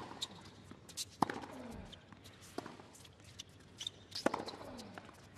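Tennis rally: racquets striking the ball from alternate ends of the court, sharp pops about every one and a half seconds.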